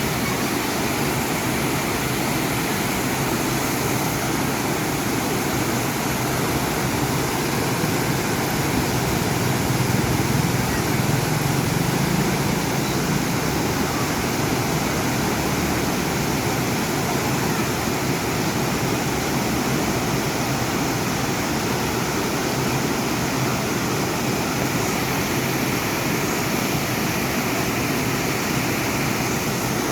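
Mimbalot Falls waterfall rushing: a steady, even noise of falling water, swelling slightly about ten seconds in.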